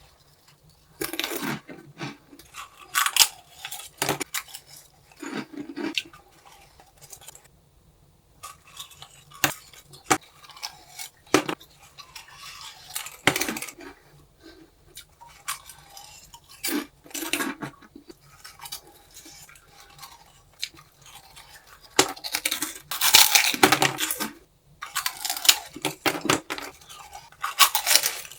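Crunchy onion ring snacks being bitten and chewed in irregular bursts of crackling, with sharp clicks among them; the crunching is loudest and thickest near the end.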